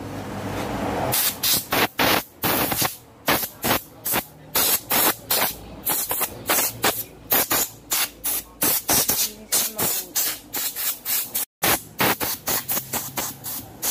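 Compressed-air blow gun fired in rapid short blasts of hissing air, two or three a second, blowing water out of a mountain bike's rear derailleur and disc brake caliper to dry them after washing.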